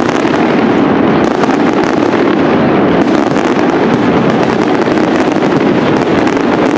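Castillo fireworks display by Pirotecnia Global-Foc: aerial shells bursting in a dense, unbroken barrage, many bangs and crackles overlapping with no pause.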